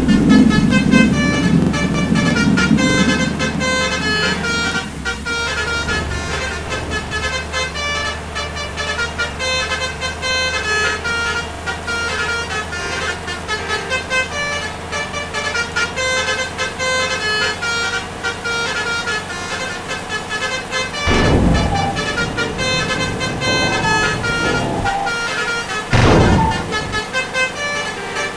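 Multi-tone 'telolet' bus horns (basuri trumpet horns) playing quick, overlapping melodic note sequences, with a low vehicle rumble in the first few seconds. Two short, loud bursts of noise come in the last third.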